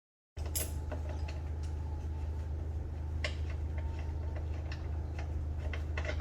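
Scattered light metallic clicks and clinks of hand tools on a motor mount bolt, over a steady low hum.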